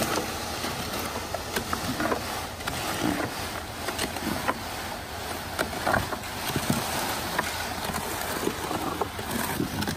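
Shovel scraping and knocking in a metal concrete chute as wet concrete slides and slops down it, over the steady running of a ready-mix concrete mixer truck.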